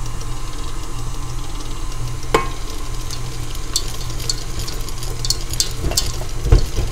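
KitchenAid stand mixer running steadily, its flat beater turning through thick brownie batter. Chocolate chips are poured into the bowl and patter against the metal bowl and beater in a run of clicks past the middle, with a few heavier knocks near the end.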